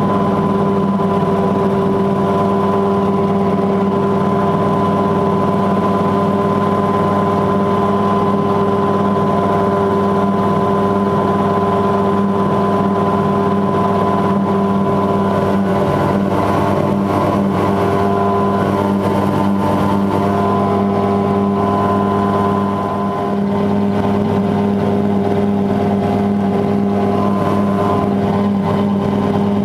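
Mosquito XE ultralight helicopter in flight: a steady, loud drone of engine and rotor with a constant hum, dipping slightly for a moment about 23 seconds in.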